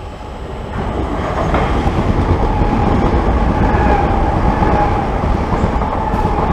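Electric multiple-unit passenger train running past the platform close by. The loud rumble of its wheels on the rails swells about a second in, and a steady whine comes in over it.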